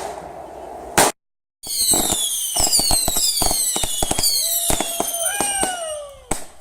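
Consumer fireworks going off: crackling and a sharp bang, then, after a brief break, several whistling fireworks screaming together with falling pitch over a rapid string of bangs and pops, ending with one last bang.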